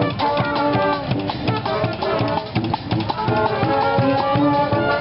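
Street brass band playing, with brass horns over drums.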